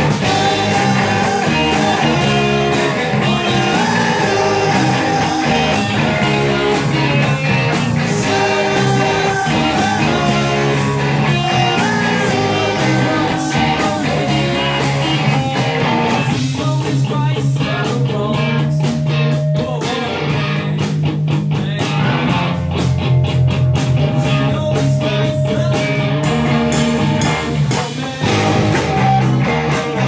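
Live rock band playing: electric guitars and a drum kit with a sung vocal. The drum hits stand out more sharply from about halfway through.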